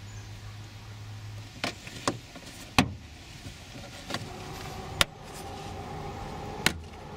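Plastic rear side trim panel of a Scion tC being pulled off by hand, its retaining clips letting go in about five sharp snaps spread across the few seconds.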